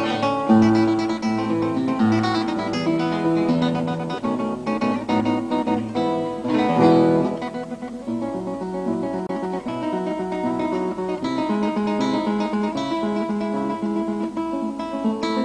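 Instrumental music on acoustic guitar, plucked notes running on without a break.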